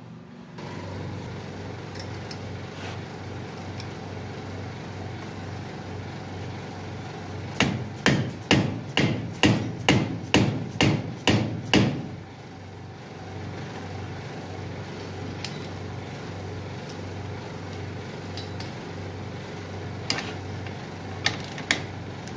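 About ten hammer blows, roughly two a second, on a rear brake caliper clamped in a bench vise.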